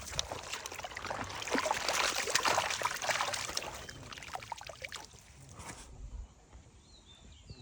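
Water splashing and sloshing in a dense run of short splashes for about four seconds, then dying away.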